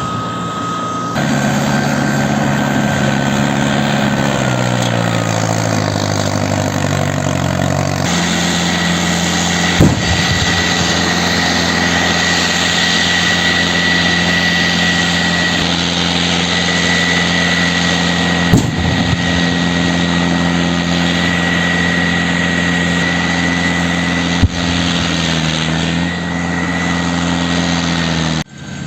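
A large engine running steadily under a high steady whine, its pitch falling for a few seconds before it settles, with three short sharp clicks along the way.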